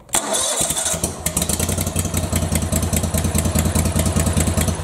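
Kohler Command V-twin engine with new ignition coils firing right up within about a second, then running steadily at speed with a fast ticking clatter, until it is shut off near the end. It sounds good: the new DSAI coil kit is giving spark.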